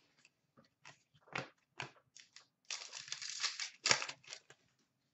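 Upper Deck SP Authentic hockey trading cards being flipped through by hand: a few short snaps and flicks, then about a second of sliding, rustling card stock as the cards are shuffled, and a sharp snap just after.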